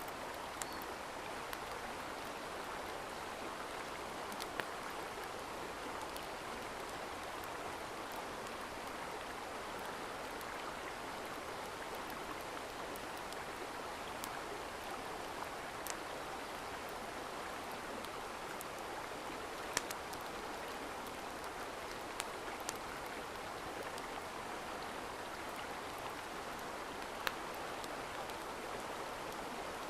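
Mountain stream running steadily, with a handful of sharp clicks scattered through it.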